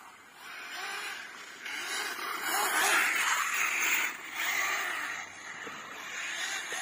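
Arrma Kraton 6S RC buggy running on paving stones: its brushless electric motor and drivetrain whine with tyre hiss. The sound rises and falls in several swells, loudest a few seconds in.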